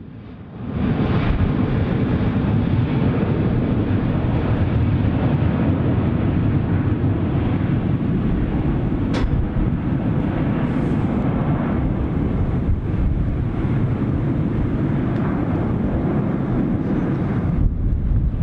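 C-17 Globemaster III's four turbofan engines at takeoff power during the takeoff roll and liftoff: a steady, heavy rumble that comes in about a second in.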